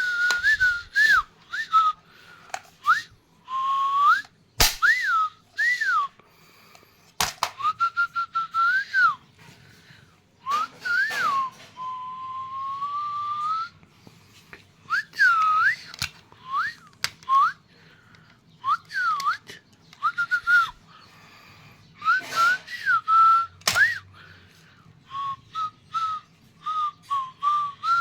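A person whistling by mouth: short notes that swoop up and down, with one longer held note midway and breathy puffs of air between the notes.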